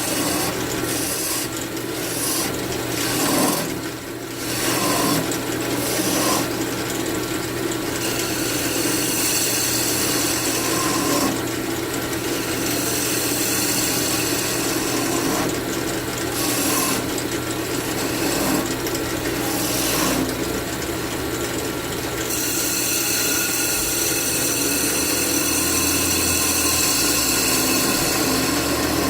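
Wood lathe running with a turning tool cutting a spinning cherry chair leg: a steady hiss of the cut over the motor's low hum, the cutting noise swelling and easing as the tool is moved along the wood.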